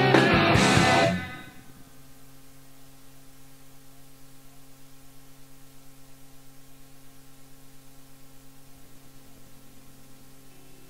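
Demo recording of a rock band with electric guitars playing loud, then breaking off suddenly about a second in. What remains is a faint sustained tone with a quick, even pulse.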